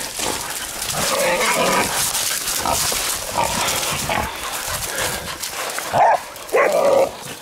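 Pig dogs barking at a caught feral pig that squeals, with several loud calls, the loudest near the end, over rustling and crashing through dry scrub and leaf litter.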